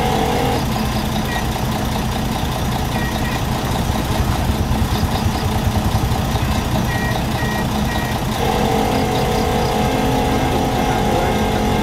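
Heavy diesel truck engine running steadily, with a few short high beeps a few seconds apart; from about two-thirds of the way through, a steadier mid-pitched tone joins the engine.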